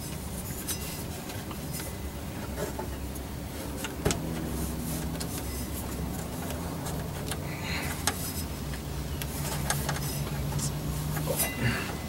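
Scattered clicks and light knocks of hand tools and parts being handled, over a steady low hum; a faint low tone joins about four seconds in, and the sharpest click comes about four seconds in.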